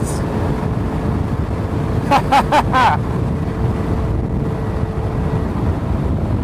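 Honda Ruckus scooter's 49cc four-stroke single running at a steady cruise while riding, with wind rumble on the microphone, and a faint steady tone that stops about five seconds in. A few short vocal sounds from the rider come about two seconds in.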